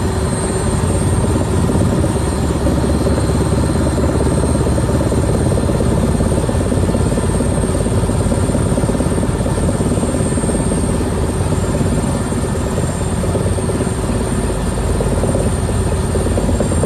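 Rescue helicopter hovering, its rotor and engine running steadily and loudly, with a thin high whine over the rotor noise.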